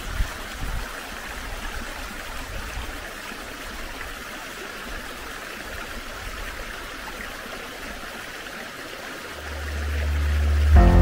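Small woodland stream running steadily, with a brief soft thump just after the start. Background music fades in with a low steady note near the end.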